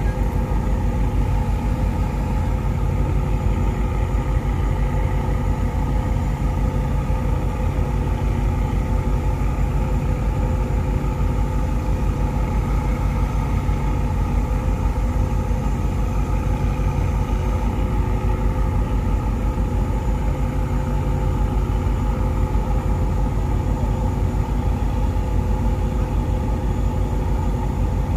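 A boat's engine running steadily: a deep, even rumble with a constant hum above it.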